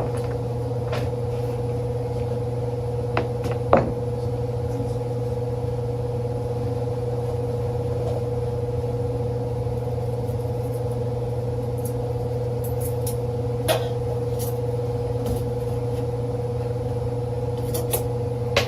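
Steady mechanical hum with a constant whining tone, broken by a few light clicks and knocks: one near the start, two close together about three to four seconds in, one in the middle and one near the end.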